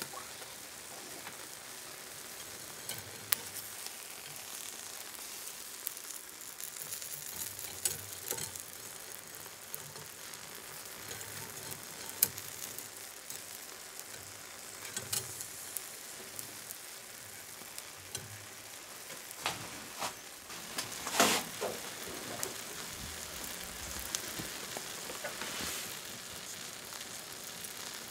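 Skewered whole small fish grilling over charcoal: a steady sizzle with scattered crackles and pops, and a louder hiss about twenty-one seconds in.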